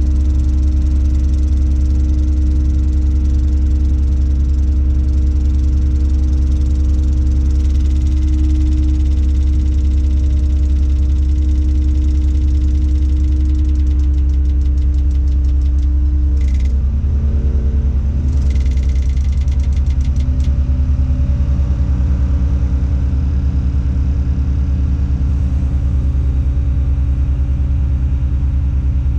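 Tadano ATF 180G-5 crane's diesel engine running steadily, heard from inside the operator's cab. About two-thirds of the way through the engine note shifts lower as the load on it changes, with a fast ticking chatter for several seconds around the change.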